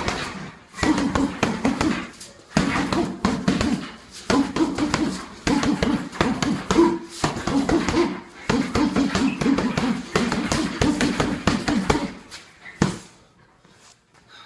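Speed bag being punched in fast rhythmic runs of knocks, about five bursts of a second to a few seconds each with short pauses between. A single knock follows near the end.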